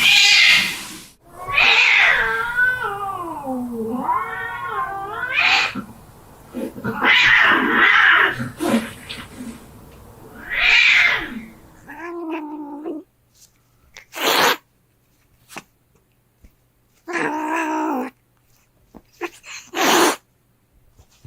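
Domestic cats fighting: long, wavering yowls and growls broken by loud spitting hisses. From about halfway on, the fight thins out into short hisses and spits and one brief yowl, with quiet gaps between them.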